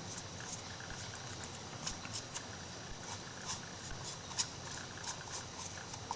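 Light, irregular scratching, ticking and rustling of paper being handled and worked on an MDF craft piece, a few small ticks a second with a slightly louder tick a little after four seconds in.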